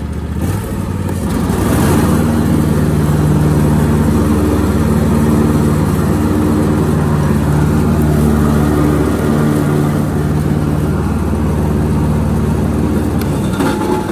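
Husqvarna TS242XD riding mower running; about half a second in the mower blades are engaged and the sound rises over a second or so to a louder steady run, the deck driven by its newly replaced deck belt. Near the end it drops back to the lower running sound as the blades are switched off.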